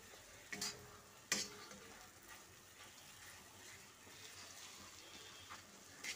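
A spatula stirring and scraping thick chana dal halwa in a kadhai as it roasts in ghee, over a faint steady sizzle. Two sharp knocks of the spatula against the pan come in the first second and a half.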